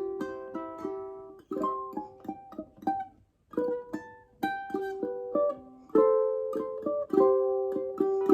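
Solo ukulele playing a picked melody over plucked chords, with a short pause about three seconds in before the playing resumes.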